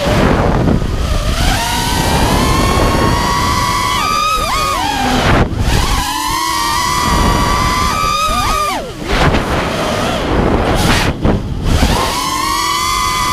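The brushless motors of a 5-inch FPV racing quadcopter (Lumenier RX2206 2350Kv motors spinning HQ 5040 triblade props) whine as it flies, the pitch sliding up and down with throttle. The whine dips briefly several times where the throttle is chopped for rolls and flips, over a rush of air on the onboard microphone.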